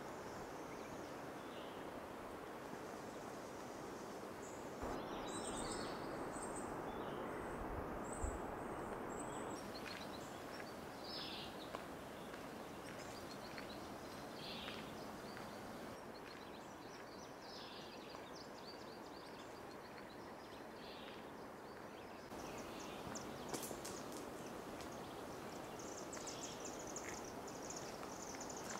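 Quiet outdoor ambience: a steady faint hiss of air with scattered short chirps of songbirds. The background changes level abruptly a few times.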